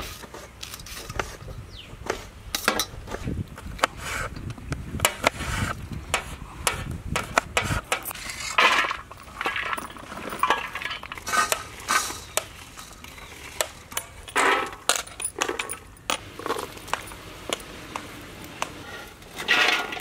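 A knife chopping vegetables on a steel plate, its blade clicking and tapping against the metal many times. A few short rushes of chopped food are tipped into metal pots, one near the end.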